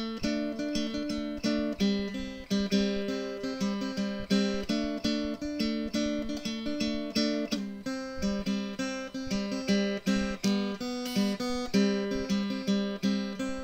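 Background music: a guitar-like tune of strummed chords in a steady, even rhythm.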